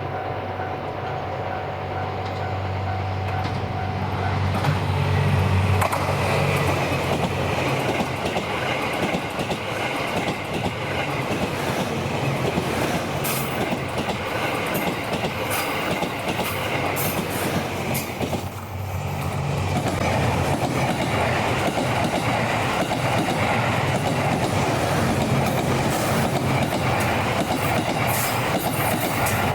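Series 87 Twilight Express Mizukaze diesel-electric train passing close by, its engines droning and its wheels clicking over the rail joints. The sound dips briefly about two-thirds of the way through, then the passing goes on.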